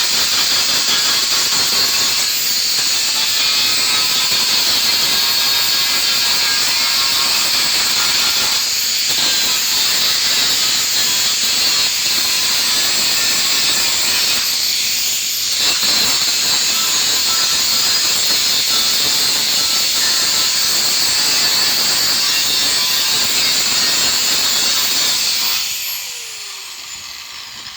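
A steady, loud hiss that fades away near the end.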